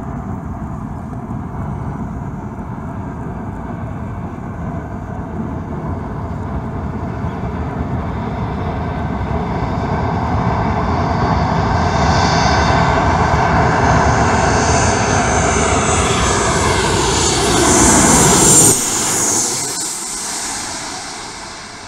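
Ryanair Boeing 737-800 jet airliner on landing approach: the engine noise builds steadily as it nears, then peaks as it passes overhead with a whine that slides down in pitch. The sound drops off abruptly and fades near the end.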